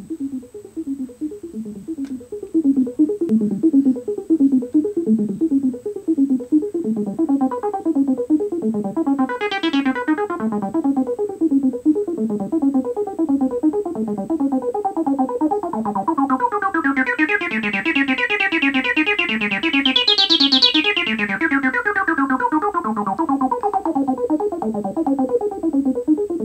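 Roland TB-03 bass synthesizer playing a looping sequenced bass line, with its filter knobs turned by hand as it runs. The tone opens up and gets brighter briefly about ten seconds in, then sweeps up more fully from about sixteen seconds, peaks near twenty, and closes back down.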